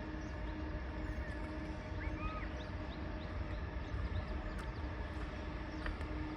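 Long goods train rumbling steadily past, with a few faint high chirps about two seconds in.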